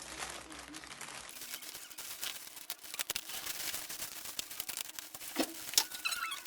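Unboxing sounds: packaging and small items handled up close, a dense run of clicks, taps and crinkles that gets busier about a second in.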